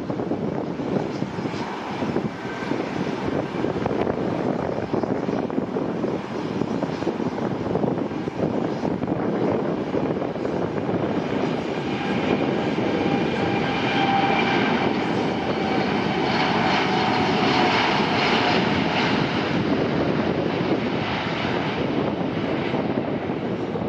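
Boeing 787-9 Dreamliner's twin turbofan engines at takeoff power during the takeoff roll: a steady jet roar with a whining tone that grows louder about halfway through as the airliner passes, then eases off near the end.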